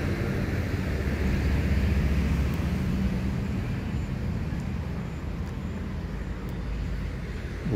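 Highway traffic running past: a low vehicle rumble that swells about two seconds in, then slowly eases off.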